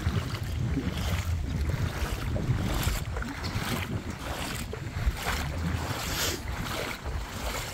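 Wind buffeting the microphone in gusts, with irregular sloshing and splashing of shallow floodwater.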